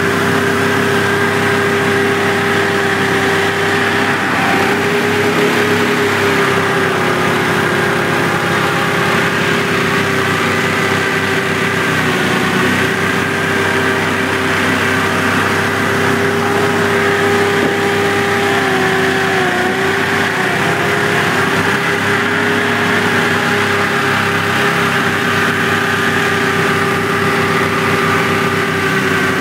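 Hovercraft engine and fan running steadily as the craft travels over grass: a loud, even drone with a strong humming tone that dips slightly in pitch now and then.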